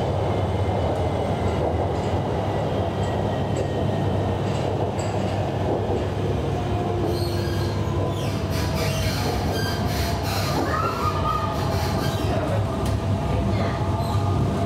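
Interior running noise of a Hanoi Metro Line 2A train on elevated track: a steady low rumble, joined from about halfway through by high-pitched wheel squeals and whines that glide up and down in pitch.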